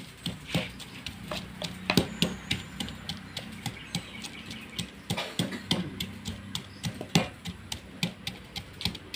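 Wooden pestle pounding moringa leaves in a mortar: a run of repeated knocks, several a second, some strokes heavier than others.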